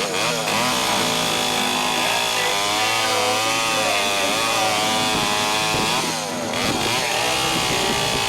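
Gas chainsaw engine running at high revs, its speed wavering up and down. The revs drop briefly about six seconds in, then pick back up.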